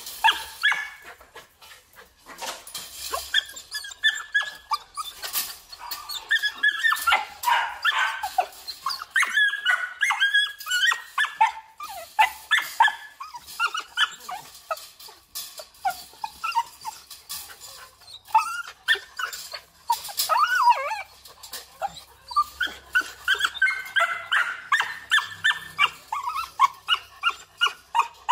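Belgian Malinois barking and yelping in rapid runs of short, high calls, with some bending, whining calls among them.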